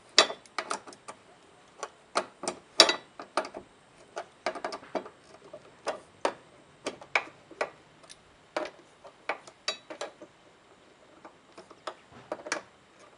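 Hand ratchet wrench clicking in short, irregular runs of sharp ticks as bolts on a metal TV mount bracket are tightened back up.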